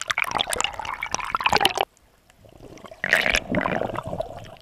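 Sea water sloshing and gurgling around an action camera bobbing at the waterline, in two bursts with a short quiet gap between. The second burst, about three seconds in, comes with the camera dipped underwater while a swimmer blows a stream of bubbles.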